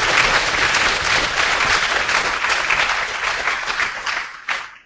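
Audience applauding, the clapping of many hands, which thins out near the end and then cuts off suddenly.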